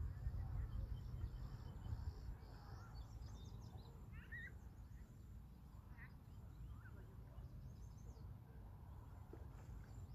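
Faint birdsong, scattered short chirps and whistles, over a steady low rumble that is loudest in the first couple of seconds.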